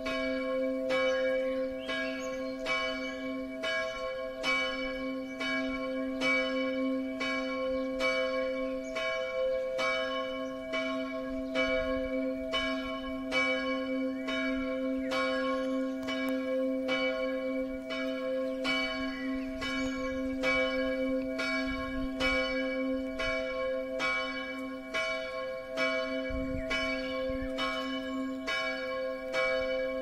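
Church bells ringing, their strokes following one another steadily at about three every two seconds over a continuous hum of the bells' sustained ringing tones.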